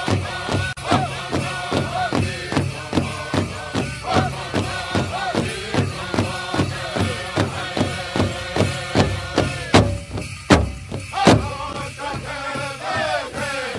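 Music: chanting voices over a steady drumbeat of about three beats a second. Around ten seconds in the voices break off for a few louder, separate drum strikes, and the chant comes back shortly after.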